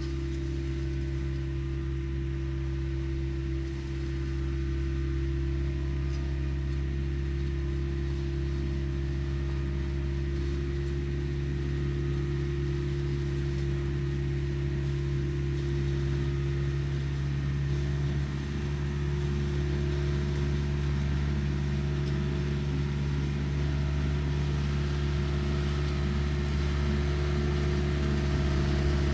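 Diesel engine of a compact construction machine running steadily at a constant pitch.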